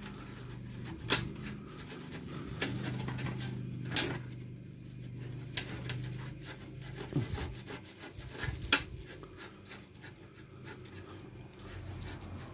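Rubbing and scraping on rusty chrome bicycle springs, with scattered sharp clicks and knocks. A low steady hum runs under it and drops away partway through with a falling pitch.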